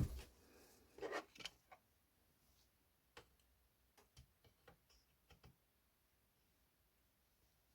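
Scattered light clicks and taps of hands working on a laptop's plastic case and parts: a sharp knock at the start and a few louder knocks about a second in, then sparse faint ticks.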